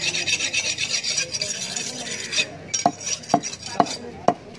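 A knife scraping rapidly over fish on a wooden chopping stump for about two seconds, then four sharp chops into the wood about half a second apart.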